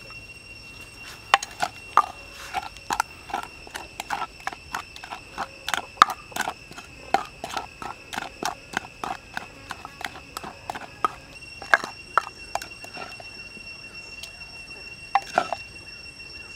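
Wooden pestle knocking against the inside of a wooden mortar while mixing chili sauce, a steady run of dull knocks about three a second, then a few scattered knocks near the end.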